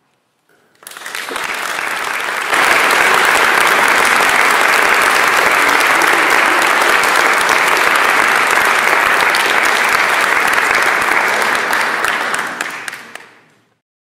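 Audience applauding: the clapping starts about a second in, swells to full strength a second or two later, holds steady, and fades out near the end.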